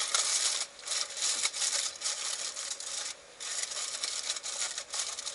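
Aluminium foil being crinkled and pressed down over a pan as a makeshift lid, a rough scratchy rustle in bursts with two short breaks.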